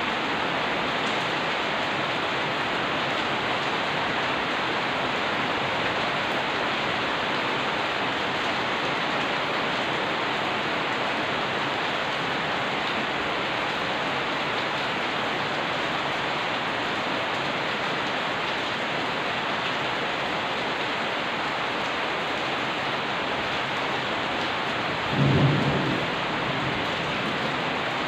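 Steady rain falling on wet surfaces, with one short low rumble of thunder about three seconds before the end.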